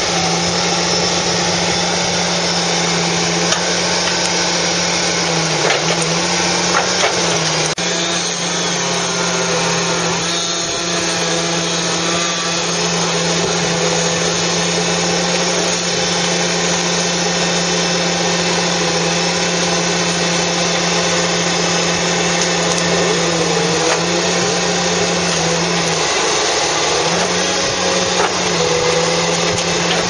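Fiberpac 370B brash baler at work, its carrier's diesel engine and hydraulics running at a steady drone with a higher whine that wavers in pitch as the machine compresses brash into a bundle.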